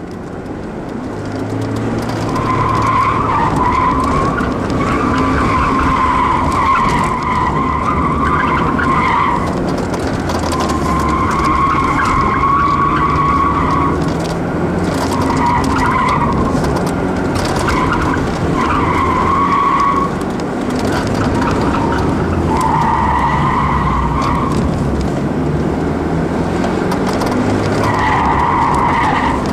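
Stock Ford Escort driven hard through an autocross course, heard from inside the cabin: the engine revs up and down as it accelerates and brakes between cones, getting louder over the first two seconds. About ten spells of tire squeal, each lasting one to three seconds, come through the corners.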